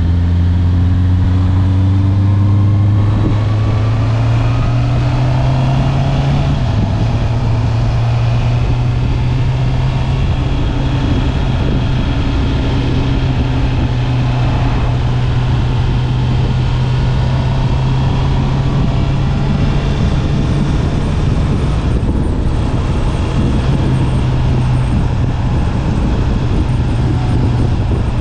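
Honda CB650R's stock-exhaust 649 cc inline-four pulling up through the revs over the first few seconds, with a quick gear change about six seconds in. It then holds a steady engine note while cruising, over constant wind and road noise.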